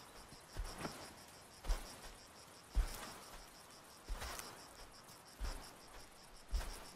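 Insects chirring in a fast, even pulse, with soft low thuds and rustles every second or so from a desert elephant's footsteps on dry ground.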